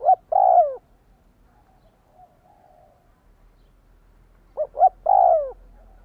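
Spotted dove cooing: two phrases, each of two short notes and a longer note that drops in pitch at its end, one at the start and one about four and a half seconds in.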